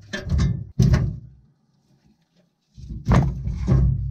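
Wood knocking and clunking inside a new wood stove's metal firebox as spruce sticks and kindling are laid in, a few sharp hollow thunks near the start and more about three seconds in, with a quiet gap between.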